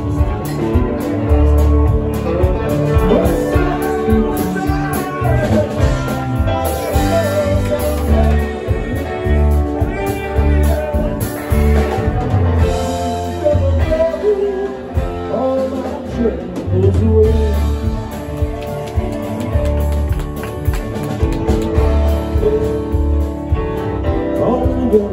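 Live rock band playing: electric guitars, drum kit and keyboard, with a steady bass line and some singing.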